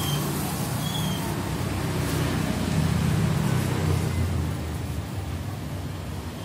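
Low rumble of road traffic, swelling about three seconds in and then fading, with two short high chirps in the first second.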